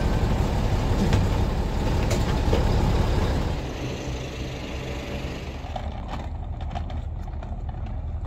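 Coach bus engine idling, a heavy steady rumble, which drops about three and a half seconds in to a quieter steady hum with a few faint clicks.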